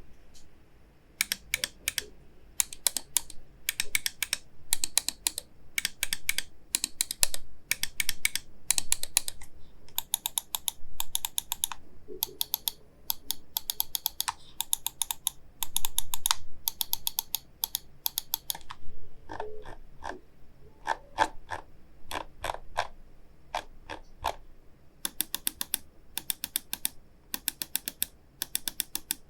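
Fantech Helios II Pro gaming mouse buttons clicking, in short runs of crisp press-and-release clicks separated by brief pauses. About two-thirds of the way through comes a stretch of duller, lower-sounding clicks before the crisp runs resume.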